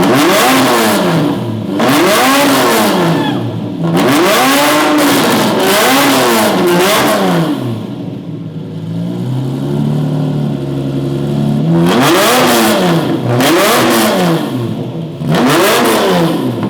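Lamborghini Murcielago V12 revved in a series of quick throttle blips, each rising and falling in pitch. It settles to a steady idle for a few seconds past the middle, then is blipped again several times. This is its current exhaust note, which the owner says does not sound good at all.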